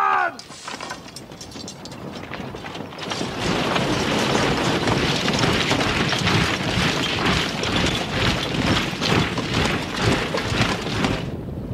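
Battle-film sound of an army on the move: a dense mass of tramping and clanking over a low rumble, swelling about three seconds in and then holding steady.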